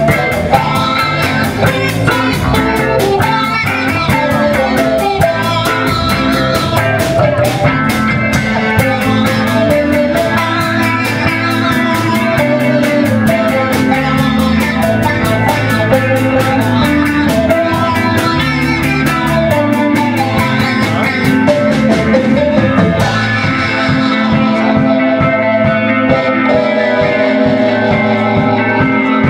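Instrumental rock band playing live: two electric guitars, bass guitar and drum kit. The cymbal wash stops about three quarters of the way through, leaving the guitars and bass more exposed.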